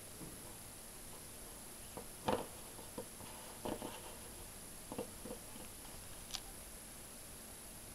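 Faint handling noises: a few light knocks and rubs as a vinyl figure is turned in the hand and set down on a wooden table, over a steady faint hiss.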